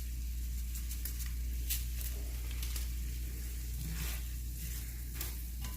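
Pan of gemelli pasta in a brown-butter and Parmesan sauce sizzling on the stove, with light scattered crackles over a steady low hum.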